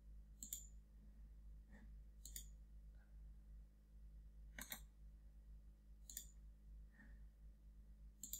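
Faint computer mouse button clicks, about five sharp ones spaced a second or two apart, over a steady low hum.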